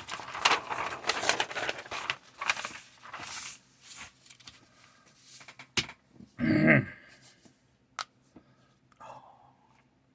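Rustling and handling of model-kit parts or paper for a few seconds, then a few light clicks and a short, low grunt-like vocal sound about six and a half seconds in.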